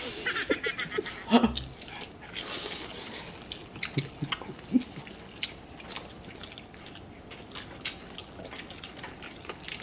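Eating sounds close to the microphone: chewing a mouthful of chicken curry and rice, with many small, wet mouth clicks scattered irregularly.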